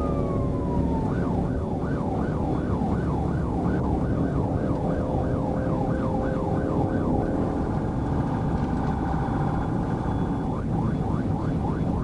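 Police car siren sounding over the loud road and engine noise of the patrol car at about 95 mph. A long wail falls off at the start, then the siren runs a fast yelp of about three sweeps a second. It switches to a steadier tone for about three seconds and then goes back to the yelp near the end.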